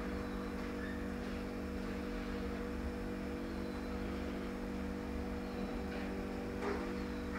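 Steady electrical hum, with faint scraping of a steel smoothing trowel stroked over freshly applied decorative plaster, two strokes near the end.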